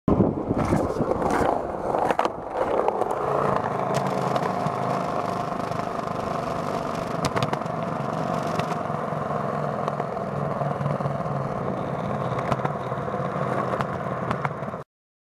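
Skateboard wheels rolling over concrete: a few sharp clacks of the board in the first seconds, then a steady rolling noise that cuts off suddenly near the end.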